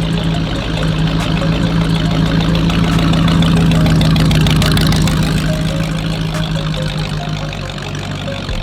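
Hot rod engine running steadily, growing louder towards the middle and then slowly easing off.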